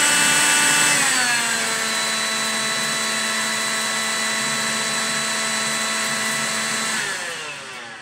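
Electrolux Rapido ZB6108 10.8 V cordless handheld vacuum running with a steady motor whine; about a second in it steps down from its strong setting to the weak setting and the pitch drops, then near the end it is switched off and winds down.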